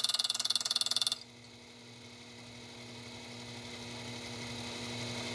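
Machine cutter chattering fast and evenly through metal while clearing waste between two tabs of a part; the cut stops abruptly about a second in, leaving the machine running with a steady hum that slowly grows louder.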